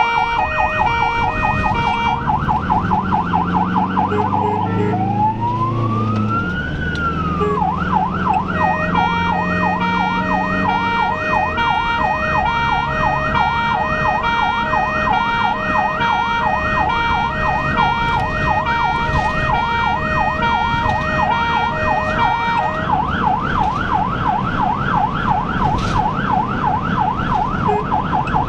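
Ambulance siren heard from inside the moving ambulance: a fast warbling pattern, then about five seconds in one slow wail rising and falling, then a rapid yelp of about three to four rises a second. Engine and road noise run underneath.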